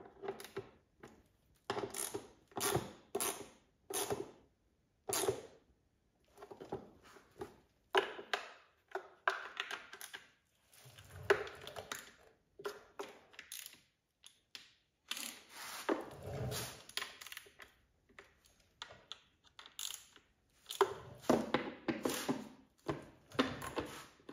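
Hand ratchet clicking in short runs of quick clicks with pauses between, as the timing cover bolts are given a final tightening by hand.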